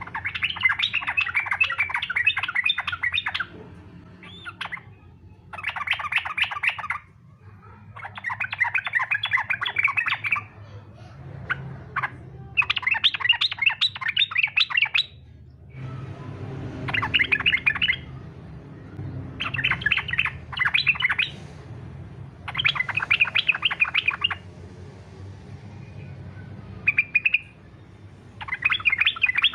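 Yellow-vented bulbul (trucukan) singing the fast, aggressive 'fighter' song used as a lure to get other bulbuls singing. The song comes as rapid chattering phrases of one to three seconds, with short pauses between them.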